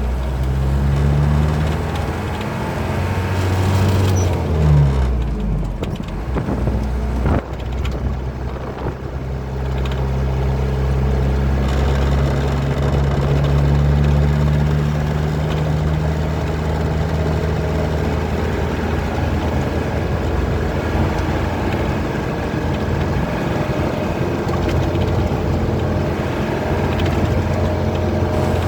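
Truck engine running on the road, its pitch rising and falling in the first few seconds as it changes speed, then holding steady.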